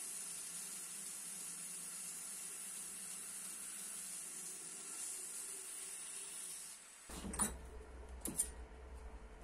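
Steady high-pitched hiss from a workshop machine, which cuts off about seven seconds in. A low hum follows, with two sharp knocks.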